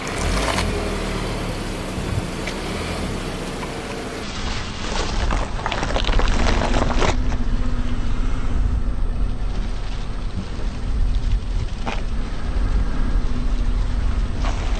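A car engine runs low while a tyre rolls slowly over bitter melons on asphalt. Crunching and cracking come in a few bursts, densest about a third of the way through.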